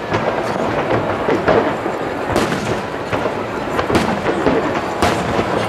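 Aerial firework shells bursting: a string of sharp booms, roughly a second apart, over a steady wash of noise.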